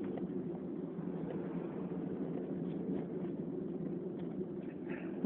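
A steady low background hum, even and unchanging, in a lull between sneezes.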